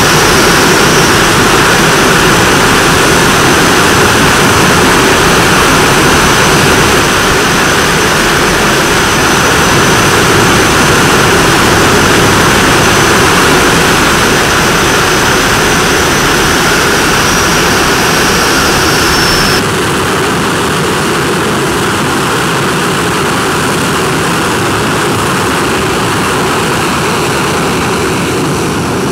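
Jet engine running at idle: a loud, steady roaring rush with a thin high whine over it. About two-thirds of the way through the whine stops and the roar drops a little.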